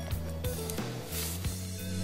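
Background music with a low bass line and light percussive clicks.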